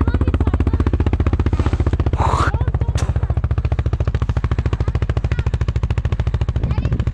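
Vehicle engine running steadily close by, its firing heard as a rapid, even chugging pulse over a low rumble. A short hiss comes about two seconds in, and a sharp click about a second later.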